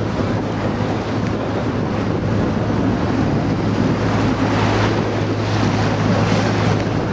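Steady drone of a tour boat's engine under wind noise on the microphone and the wash of choppy river water.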